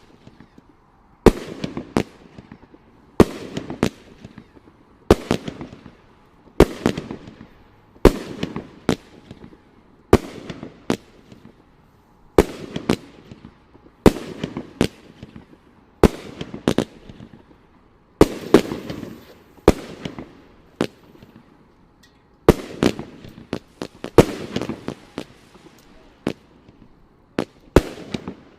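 A 200-gram consumer aerial firework cake firing shot after shot, about one every one and a half to two seconds. Each shot comes as a pair of sharp bangs, the launch and then the break, with a crackling tail trailing off after it.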